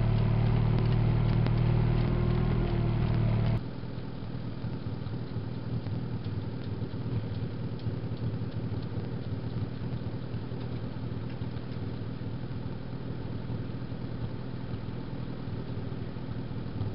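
Farmall Super H tractor's four-cylinder engine running steadily while pulling a two-row corn planter. After about three and a half seconds it cuts abruptly to the tractor idling steadily and more quietly.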